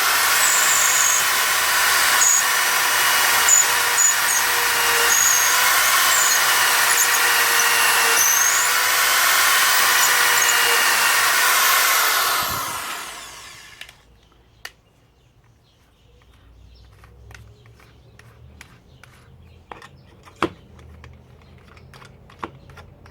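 Power drill boring a hole in wood: the motor runs steadily for about twelve seconds, then winds down and stops. A few light clicks and knocks follow.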